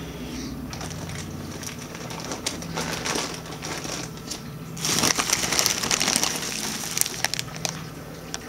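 Plastic bags crinkling and rustling: the black trash-bag liner and the clear bags packed inside it being handled, loudest from about five seconds in for two to three seconds. A steady low hum runs underneath.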